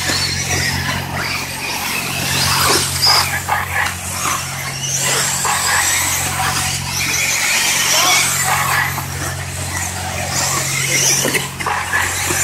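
Electric 1/8-scale RC buggies racing on a dirt track, their brushless motors giving a high-pitched whine that rises and falls with throttle. A steady low hum runs underneath.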